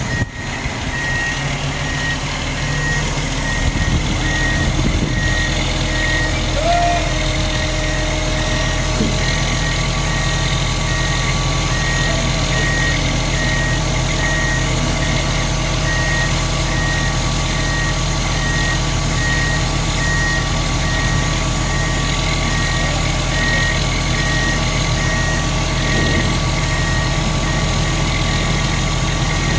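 Diesel engine of a hydraulic mobile crane running under load as it hoists a yacht, getting louder about three seconds in, with an electronic warning beeper repeating a steady high beep.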